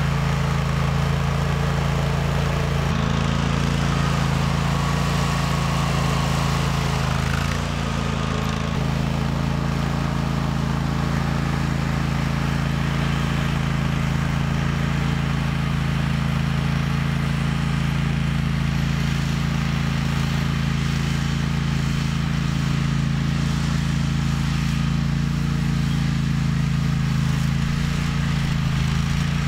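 A 25-horsepower John Deere G110 lawn tractor engine runs at a steady, even speed while the tractor pushes snow with its blade.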